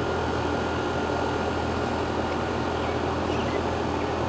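Residential air-conditioner condensing unit running: the compressor's steady low hum under the even rush of the condenser fan.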